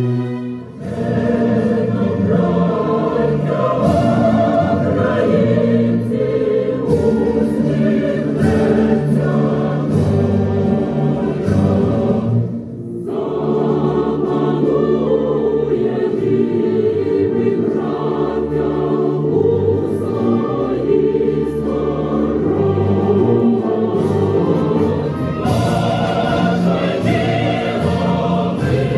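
A choir singing with long held notes. The singing breaks off briefly about a second in and again about 13 seconds in.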